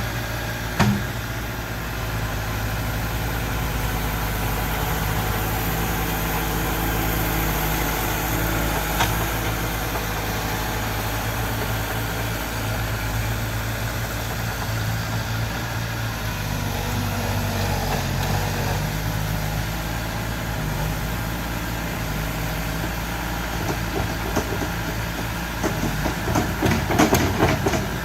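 Mini bulldozer's engine running steadily, its pitch shifting a little now and then as it works. A sharp knock about a second in and a run of rapid clattering knocks near the end.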